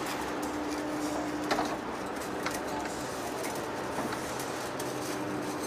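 Large lathe running as it turns a huge steel cylinder: a steady machine hum over workshop noise, with a sharp knock about one and a half seconds in.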